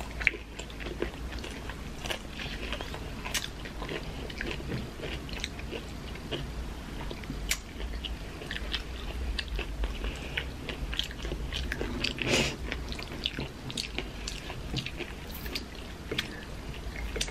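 Close-miked eating: chewing and crunching of crisp fried taquitos, with irregular crunches and wet mouth sounds throughout. The loudest crunch comes about twelve seconds in.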